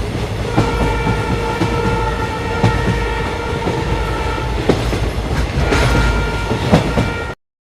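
Indian Railways ICF passenger coach running on the track: a steady rumble with repeated clicks of the wheels over rail joints. A train horn sounds twice over it, once for about four seconds starting half a second in and again near the end. All sound cuts off suddenly just before the end.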